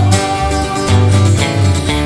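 Woman singing a country-pop song over strummed acoustic guitar, holding a long note through most of the stretch.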